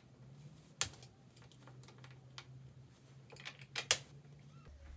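Scattered clicks and taps of an Össur Rheo Knee XC prosthetic leg being handled and taken off, the sharpest about a second in and a small cluster near four seconds. A faint steady low hum lies under them and stops shortly before the end.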